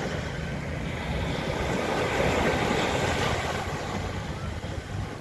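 Sea surf washing on a beach, a steady rush of waves with wind rumbling on the microphone; the wash swells a little about two seconds in.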